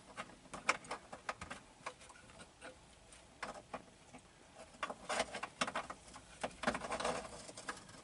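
Faint, irregular small metallic clicks and taps as a captured nut on a tiny magnet tool is worked into the sheet-metal cavity of a car's B-pillar, with clusters of taps about five and seven seconds in.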